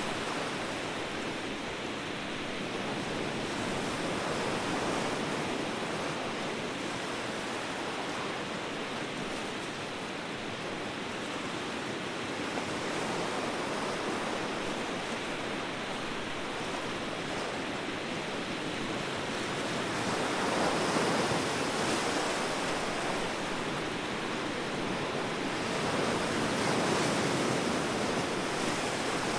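Ocean surf washing in, a continuous rushing noise that swells louder twice as waves break, about two-thirds of the way in and again near the end.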